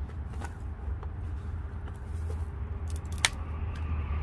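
Steady low rumble with a few faint clicks and one sharp click about three seconds in, from small objects being handled in gloved hands.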